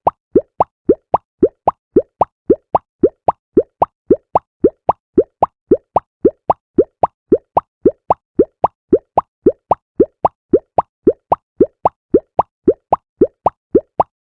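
Synthesized cartoon 'toko-toko' walking sound effect: a steady run of short bubbly plops, about four a second, alternating between a higher and a lower pitch like left and right steps, each with a quick upward pitch sweep.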